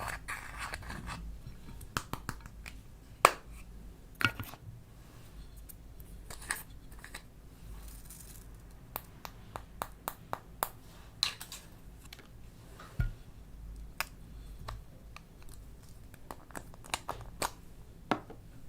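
Irregular sharp clicks and light scratching from small objects being handled, the loudest click a little over three seconds in.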